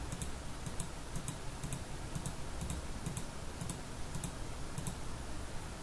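Computer mouse button clicking faintly and steadily, about twice a second, each click a quick double tick.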